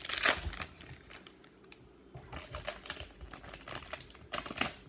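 Trading cards being handled: stiff cards sliding and clicking against each other. There is a louder flurry of rustling and clicks at the start and another near the end, with lighter ticks between.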